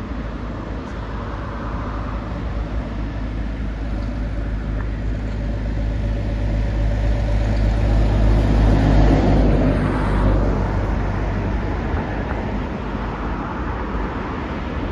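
Airbus A380 on final approach passing low overhead, the jet noise of its four turbofan engines growing to a peak about eight to nine seconds in and then fading.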